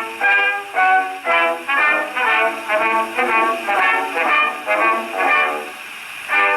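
Brass music played from a record on a gramophone. The sound is thin, with no deep bass or high treble. The notes change a few times a second, with a brief lull about six seconds in.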